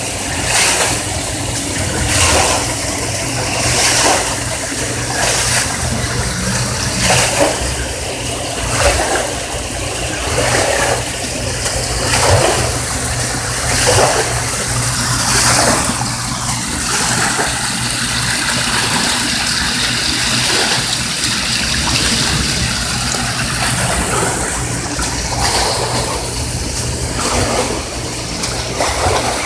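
Floodwater rushing and splashing over a steady low hum; for about the first half, a swish comes roughly once a second.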